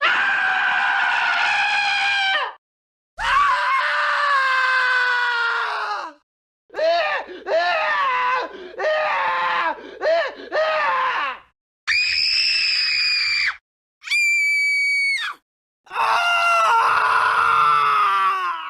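A string of scream sound effects played one after another, each cut off by a short silence. Some long screams fall in pitch, a run of short wavering screams comes in the middle, and two steadier, very high shrieks follow.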